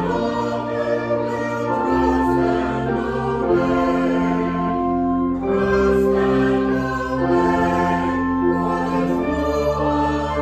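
Slow music of held chords that change about every two seconds, with singing voices among them, in the manner of a choral hymn.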